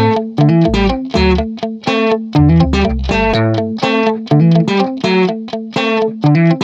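Background music: a guitar-led instrumental track with quick, evenly paced plucked notes over a bass line.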